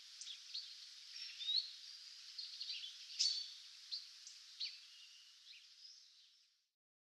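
Small birds chirping in short, high calls and quick pitch glides over a faint steady hiss; the sound stops shortly before the end.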